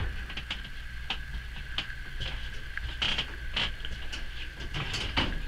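A pet squirrel scrambling over a wire cage: irregular light clicks, scratches and rattles of claws on the metal mesh. A steady faint high whine sits underneath.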